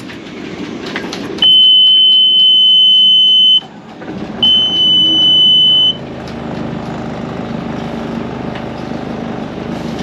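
Yanmar 4JH3 marine diesel being started from the cockpit key panel: the panel's warning buzzer sounds for about two seconds, stops, then sounds again as the engine catches. The buzzer cuts out about six seconds in and the engine settles into a steady idle, starting cleanly after its fuel system was bled.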